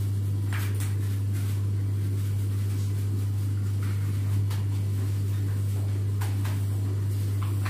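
Air compressor motor running with a steady low hum while a bicycle tyre is inflated until firm, with a few faint clicks and taps.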